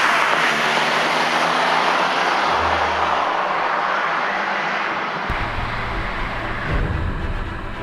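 Porsche Carrera 3.0's air-cooled flat-six pulling away after a pass, its note fading as the car recedes down the road. About five seconds in, the sound changes to a low, steady engine drone heard from inside the cabin.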